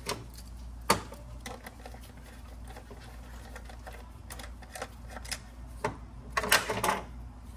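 Scattered clicks and plastic clatter of hand work in an engine bay, where ignition coils are being unclipped and pulled during a spark plug change; one sharp click about a second in and a cluster of louder rattling near the end.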